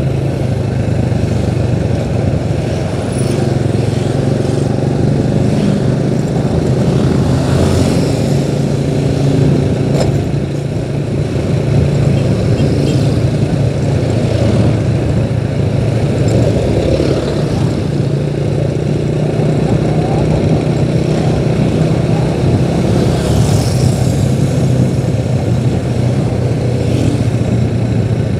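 Engine and road noise of a moving vehicle, running steadily as it travels along the road.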